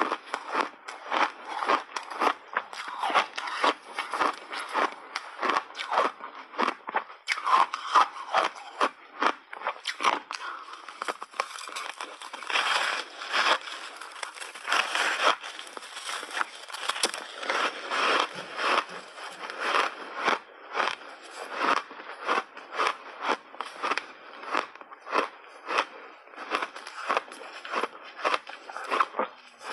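Block ice coated in milk powder, bitten and chewed with a continuous run of sharp crunches, a few a second, picked up close by a clip-on microphone.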